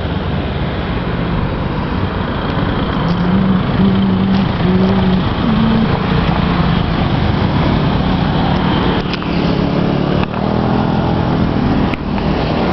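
Road traffic passing: a steady motor-vehicle rumble, with one engine's note standing out and stepping up in pitch about three to five seconds in.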